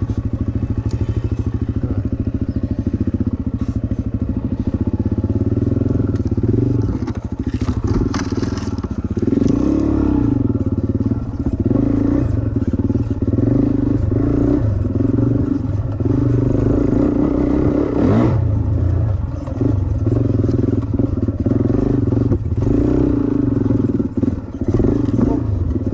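Suzuki dirt bike engine running in low gear, revving up and down as the throttle is opened and shut every second or two along a tight trail. A sharp knock about 18 seconds in, with a few cracks.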